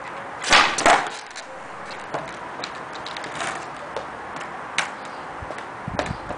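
Skateboard ollie on concrete: the tail snaps against the ground and the board lands just under half a second later, two sharp clacks. Then a few lighter knocks and clicks as the board is shifted and set back under the feet.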